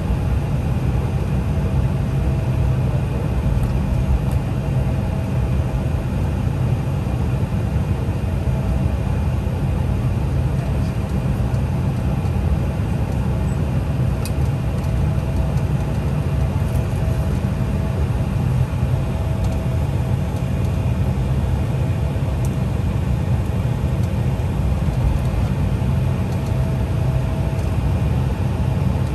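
Steady low rumble of an Embraer 175's GE CF34-8E turbofan engines at taxi power, heard inside the passenger cabin, with a faint steady whine on top.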